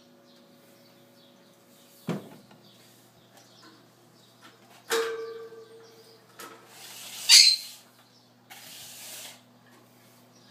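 A few knocks and scraping noises: a knock about two seconds in, a sharper knock with a brief ringing tone about halfway, then a scrape that peaks in a short squeak and a brief rustle. These sit over a low steady hum and faint chirping in the background.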